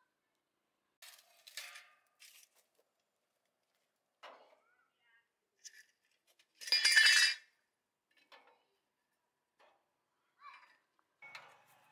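Small metal parts and hand tools clinking and clattering in scattered short knocks, with one louder metallic rattle lasting about a second just past the middle.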